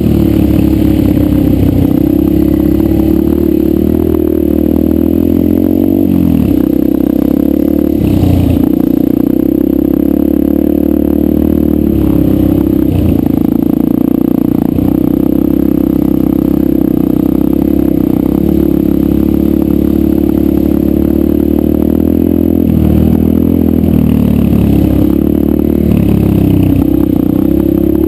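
Yamaha 125 dirt bike engine running steadily under throttle on a trail ride, its pitch dropping and climbing again several times as the throttle is eased and reopened.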